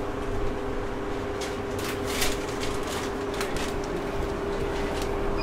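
Steady machine hum with a low rumble, under a run of crisp paper rustles and clicks from about a second and a half in, as porchetta is cut and wrapped in paper at the counter.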